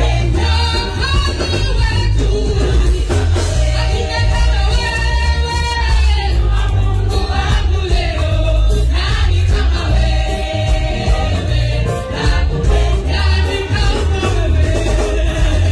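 A women's choir singing a Kalenjin gospel song together over an amplified band with a strong bass line.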